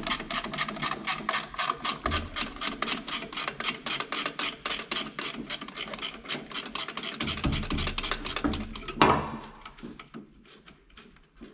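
Ratchet wrench clicking rapidly, about five clicks a second, as a 13 mm nut holding the air cleaner on top of the carburetor is backed off. One louder knock about nine seconds in, then the clicking stops.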